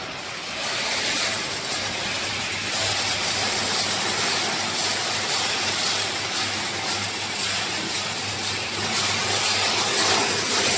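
Pet-food production line machinery running: a steady low hum under a dense, even hiss.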